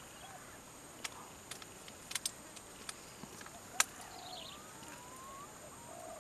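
Quiet outdoor ambience under a steady high hiss, broken by a few sharp clicks, the loudest about four seconds in. Near the end, birds chirp and give a rising whistle.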